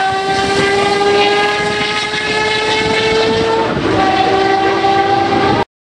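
Matra 670's 3-litre V12 racing engine at high revs, a high pitched note that climbs steadily as the car accelerates and then drops sharply a little under four seconds in at an upshift. The sound cuts off abruptly near the end.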